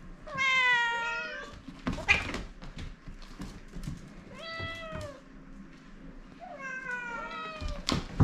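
Domestic cats meowing for their food: three long, drawn-out meows, each falling then wavering in pitch. A sharp knock about two seconds in and a louder thump at the end.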